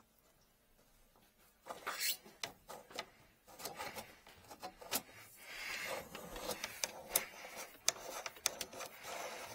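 Drain-inspection camera push cable being handled and fed into the sink drain: irregular clicks, knocks and rubbing, starting about a second and a half in.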